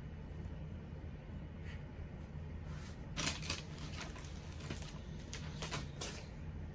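Close, dry scratchy rustles, about eight short strokes in quick succession between about three and six seconds in. They sit over a steady low hum.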